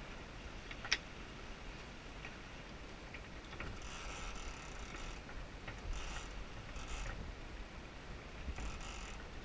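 Sailboat rigging: a sheet running through ratchet blocks in four short spells of rapid clicking, with one sharp click about a second in and a steady low rumble underneath.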